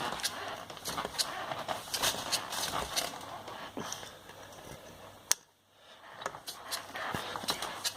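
A worn shock absorber knocking: irregular sharp knocks and clicks over a rustling, scraping noise, with a brief quiet spell a little past the middle.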